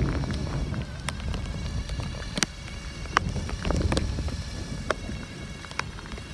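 Tropical-storm wind buffeting the microphone as a low rumble that eases off, with scattered sharp ticks of dripping rain.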